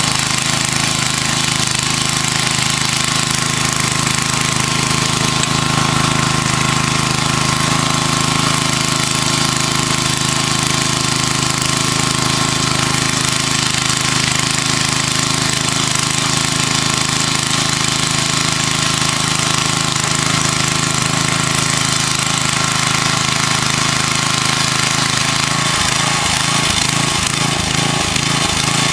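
Gas-powered front-tine rototiller engine running steadily as its tines churn through garden soil. Near the end the engine note starts to waver unevenly.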